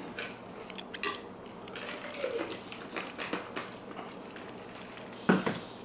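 Small metallic clicks and scrapes of a disc detainer pick and tensioner working inside a padlock, as the discs are rotated and set. One louder, short knock comes about five seconds in.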